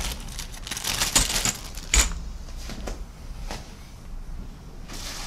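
Clear plastic bag crinkling and rustling as a plastic model-kit sprue is handled and slid into it, with a sharp tap about two seconds in.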